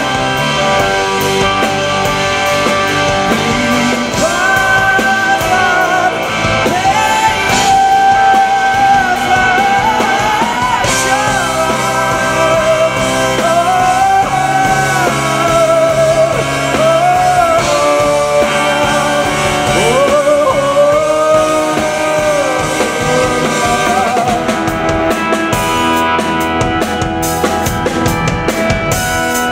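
Live rock band playing electric guitars, bass, keyboards and drum kit, loud and continuous. A voice sings a melody over the band from about four seconds in until a few seconds before the end.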